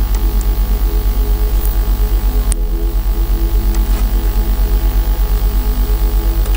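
Loud steady electrical hum with a fast, regular pulsing, typical of mains hum picked up by the recording microphone. A few faint clicks sound over it, the sharpest about two and a half seconds in, from mouse clicks.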